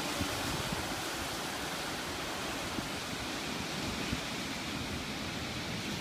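Strong, sudden wind blowing hard through palm fronds and shrubs: a steady rushing noise with an uneven low rumble underneath.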